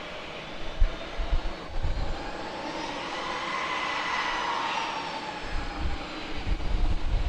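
Jet airliner engines, a steady rush with a faint whine that swells and fades around the middle, with low rumbling bursts near the start and again near the end.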